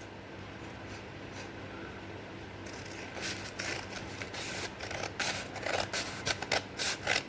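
Scissors cutting a triangle out of a folded A4 paper sheet: after a quieter start, a run of irregular snips and paper rustles begins about three seconds in and continues.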